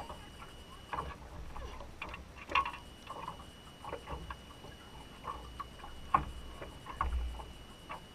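Scattered light knocks and taps on a metal boat, with a low wind rumble on the microphone.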